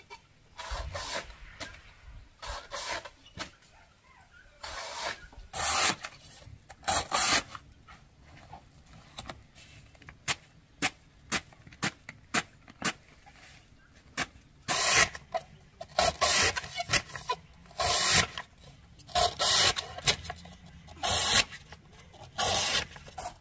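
Large knife shaving a peeled bamboo shoot into thin strips: repeated short scraping cuts through the crisp flesh, uneven in pace and loudness.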